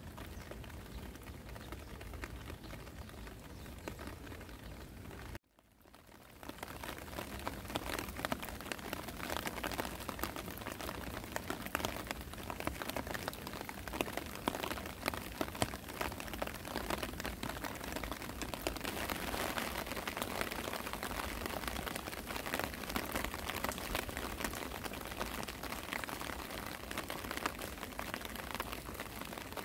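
Spring rain falling and pattering. About five seconds in, the sound cuts off for a moment and returns as louder, denser pattering of many drops.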